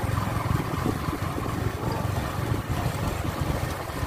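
Motorcycle engine running steadily at low riding speed, with wind rushing over the microphone.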